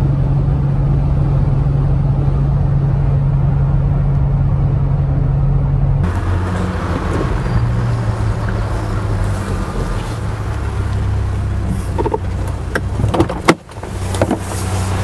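Jeep Gladiator JT running through an MBRP dual-exit cat-back exhaust: a steady engine drone heard inside the cab while cruising, then, from outside, the truck rolling up and idling low. Near the end come a few sharp clicks and a loud knock as the driver's door is opened.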